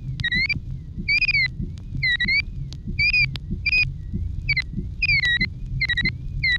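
Morse code beeps played from a modified record on a turntable: short high tones, about two a second in an uneven rhythm, their pitch wavering slowly up and down. Beneath them run a low rumble and clicks.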